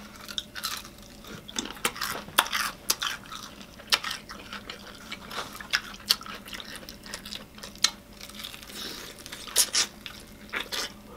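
Close-miked chewing of crispy fried chicken: irregular wet mouth smacks and crunches, some sharper than others.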